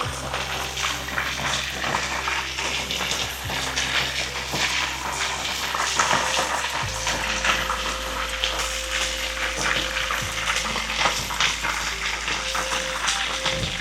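Chicken frying in a hot pan: a steady, dense sizzle with many small crackles and pops.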